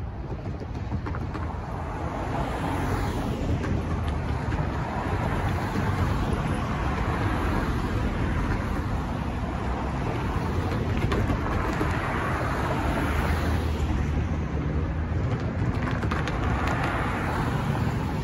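Road traffic: cars driving past one after another, each one swelling and fading as it goes by.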